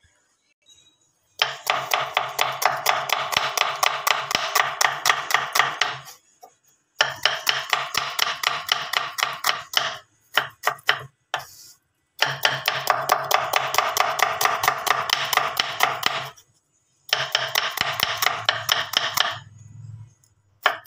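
Kitchen knife slicing a red onion on a wooden chopping board: quick, even knocks of the blade on the board, about five a second, in four runs of a few seconds each with short pauses between them.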